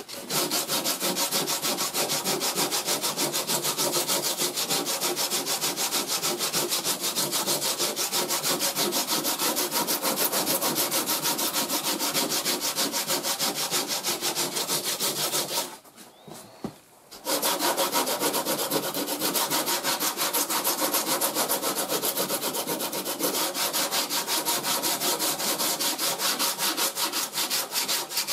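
Hand sanding hardened body filler with 36-grit paper on a small sanding block: quick, even back-and-forth strokes, stopping for about a second and a half a little past halfway, then carrying on.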